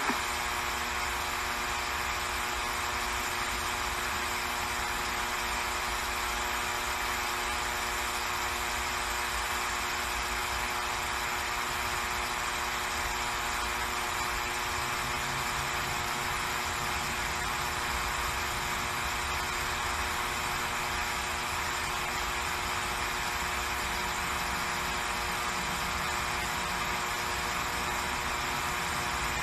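A steady buzzing hum made of many stacked tones, unchanging in pitch and level.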